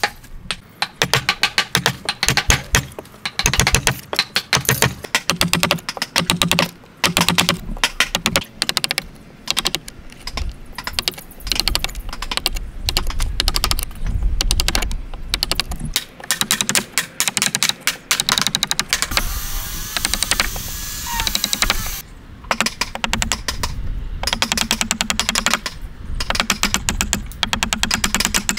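Wood chisel chopping out a joint notch in a timber post, in quick light clicking taps, many to the second.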